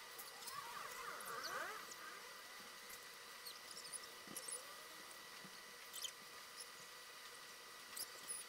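Faint graphite pencil drawing on sketch paper: scattered short scratches and ticks, with a brief cluster of squeaky glides about a second in, over a steady hiss and a thin high tone.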